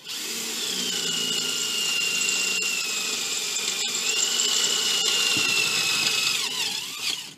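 Power drill running steadily as it bores a screw hole through a metal mounting plate. Its motor whine dips a little midway, then winds down and stops near the end.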